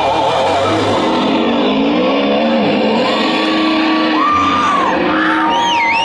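Loud music playing for a stage performance, with shouts and whoops from the audience.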